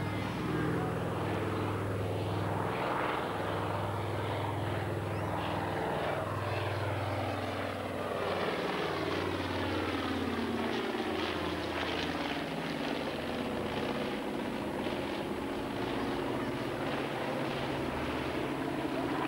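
Consolidated PBY Catalina flying boat's twin Pratt & Whitney R-1830 Twin Wasp radial engines droning steadily as it flies past, with the propeller and engine pitch falling as it passes close overhead about halfway through.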